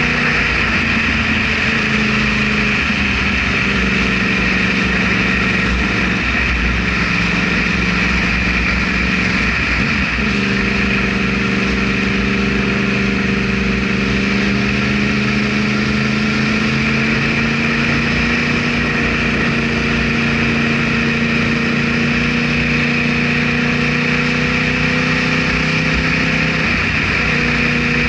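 Yamaha R1 motorcycle's inline-four engine running steadily under way. Its pitch dips about two seconds in, holds, then climbs slowly through the second half before dropping back near the end.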